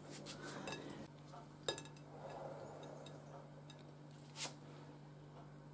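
Faint clicks and light knocks of kitchen utensils being handled on a counter, the clearest about a second and a half in and another near four and a half seconds, over a faint steady hum.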